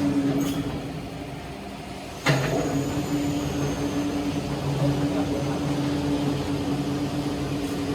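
A motor or engine running with a steady hum, with a sudden loud clunk a little over two seconds in, after which it runs on louder.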